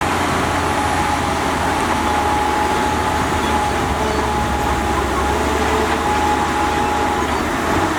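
Heavy construction machinery engine running steadily, a constant drone with a faint steady whine.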